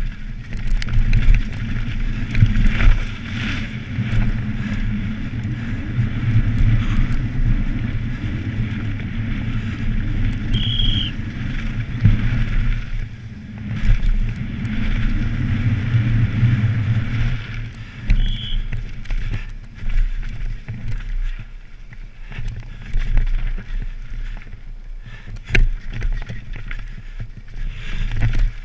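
Downhill mountain bike at race speed on a dirt track: wind rushing over the rider-mounted microphone, the knobby tyres rumbling over the dirt, and frequent sharp knocks and rattles as the bike hits bumps and roots.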